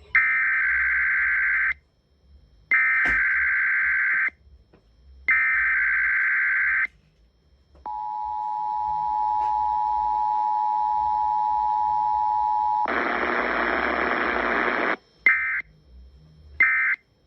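Emergency Alert System tones: three screeching SAME header data bursts, then the steady two-tone EAS attention signal for about five seconds. After it comes about two seconds of hiss, then the first two short end-of-message data bursts.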